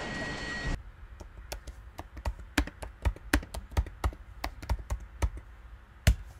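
Typing on a computer keyboard: sharp, irregular key clicks, several a second, with one louder click near the end. A steady hiss cuts off just under a second in, before the typing.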